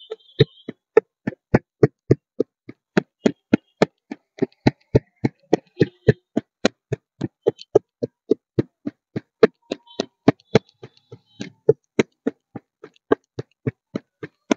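Wooden pestle pounding fresh coriander leaves in a stainless steel pot, crushing them into a paste: steady knocks, about three strokes a second.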